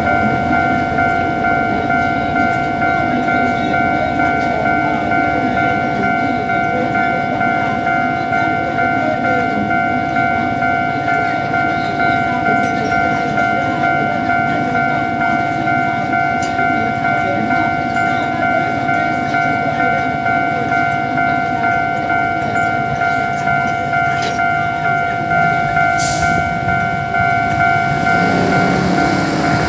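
Level-crossing warning bell ringing without a break, an evenly pulsing electronic tone, over the low rumble of a narrow-gauge sugar-cane train passing over the crossing. Near the end a road vehicle's engine comes up.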